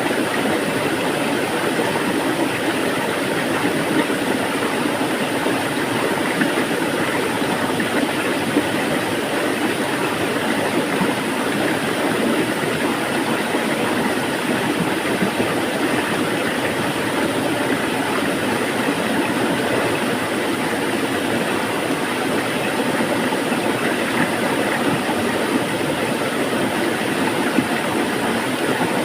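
Flowing water running steadily, an even rushing sound with no let-up.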